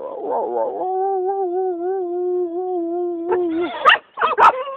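An American bully dog whining: one long, steady, drawn-out whine with a slight waver, held for about three seconds, then a few short, sharp yelps near the end.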